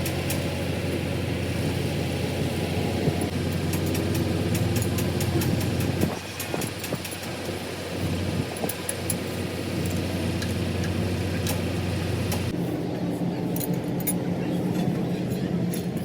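A machine or engine running steadily with a constant pitched hum, changing in tone about twelve seconds in, with light metallic clicks on top.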